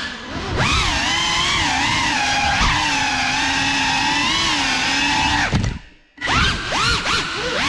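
GEPRC Cinelog 35 cinewhoop drone's brushless motors and ducted propellers whining, the pitch rising and falling with the throttle. About six seconds in the whine drops away almost to silence, then spins back up.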